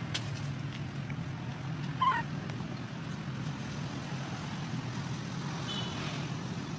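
A steady low hum, with one short, high squeal from a baby monkey about two seconds in and a fainter high call near the end.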